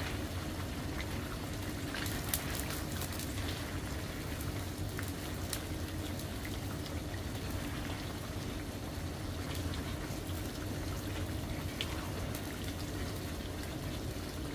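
Chicken pieces simmering in tomato sauce in a skillet, bubbling and crackling with many small pops over a steady hiss, as a silicone spatula stirs through them.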